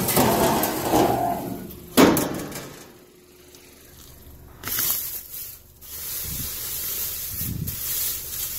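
Plastic bags crinkling and rustling as they are handled and pulled open, with a few soft bumps. A sharp click comes about two seconds in.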